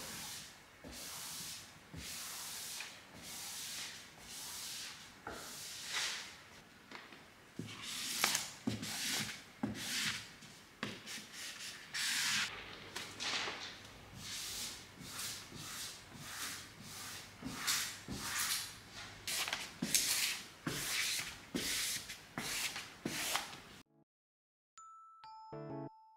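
Repeated rubbing or scraping strokes over a surface, irregular at roughly one to two a second, then a brief chime of a few clear ringing tones near the end.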